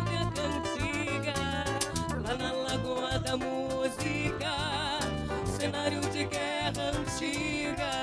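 A woman singing a regional song with a wide vibrato, accompanied by a nylon-string acoustic guitar.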